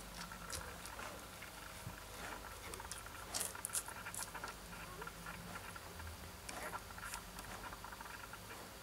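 Newborn Siberian husky puppies nursing: faint high squeaks and small wet clicking suckling sounds, with a few louder clicks about three and a half seconds in.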